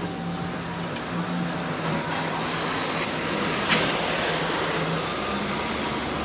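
A stream of bicycles riding past on a city street: a steady rush of outdoor noise, with one short high ring about two seconds in.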